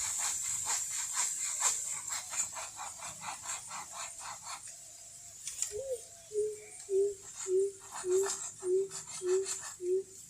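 A fast rattling series of clicks, then about eight short, evenly spaced low hooting notes, roughly one and a half a second, from a calling animal. A steady high hiss runs beneath.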